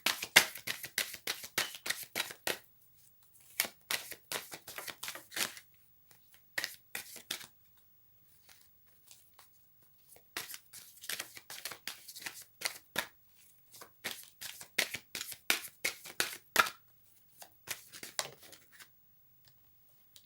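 Oracle deck cards being shuffled by hand in about six bursts of rapid clicking and flicking, with short pauses between the bursts.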